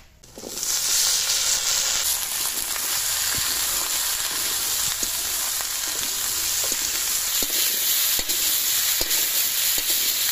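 Sliced brinjal tipped into hot oil in a wok, breaking into a loud sizzle about half a second in and then frying steadily, with scattered scrapes and taps of a spatula stirring against the pan.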